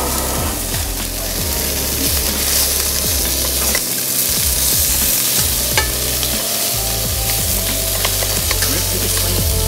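Beef steaks sizzling in a hot pan, a steady frying hiss.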